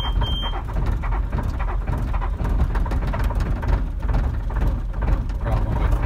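Bobcat S590 skid steer's diesel engine cold-starting in freezing weather after its intake air heater has warmed the air: it cranks over and catches, running up to idle near the end. A short two-part electronic beep from the cab display sounds right at the start, heard from inside the cab.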